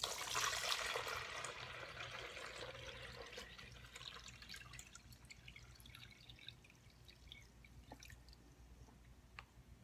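Water poured from a coffee pot into a drip coffee maker's water reservoir: the pour starts suddenly, strongest for the first couple of seconds, then thins over several seconds to a trickle and a few drips.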